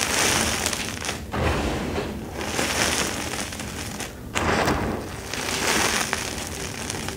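Hands squeezing and crushing handfuls of crumbled soft gym chalk, a grainy crunch repeated about five times.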